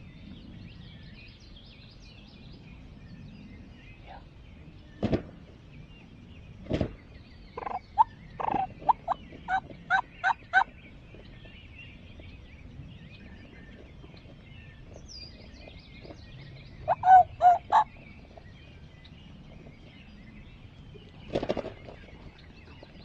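Wild turkey calling: a loud gobble about five seconds in and another soon after, then a quick run of about eight short notes, a cluster of three or four more later, and a last gobble near the end. Small birds chirp faintly throughout.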